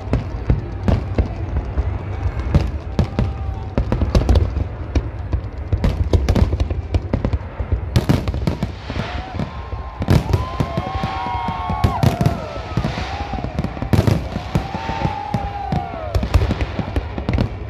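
Aerial fireworks display: a dense run of shell bursts, bangs and crackling. From about eight seconds in, long gliding tones rise and fall over the bangs.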